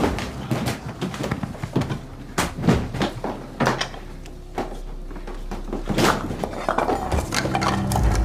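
Irregular knocks and thuds of doors and cupboards being opened, shut and bumped as a house is searched, with a low steady hum in the second half.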